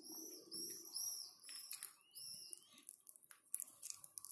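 Small bird chirping: a rapid string of short, arching high chirps, then a longer gliding note about two seconds in, with a few soft clicks.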